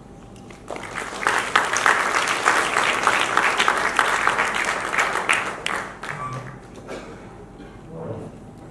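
Audience applauding, starting about a second in and dying away after about five seconds, with a few faint voices as it fades.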